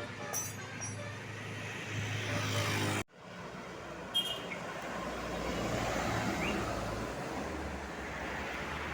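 Passing buses and road traffic with a steady engine rumble. The sound swells as a vehicle goes by close, breaks off abruptly about three seconds in, then resumes. A short, sharp high-pitched toot comes about a second later.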